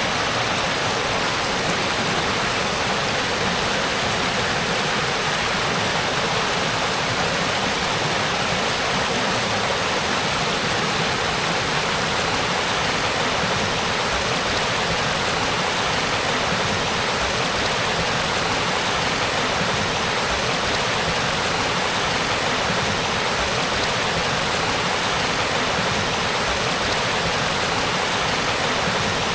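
Spring-fed stream babbling, a steady, unbroken rush of flowing water.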